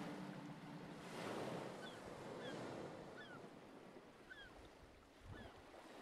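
Faint, soft rushing wash like surf that swells about a second in, with short high chirps that slide downward, roughly once a second.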